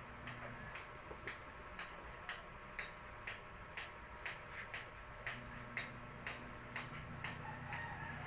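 Regular sharp clicking, about two clicks a second, evenly paced like a ticking clock, over a faint steady hum.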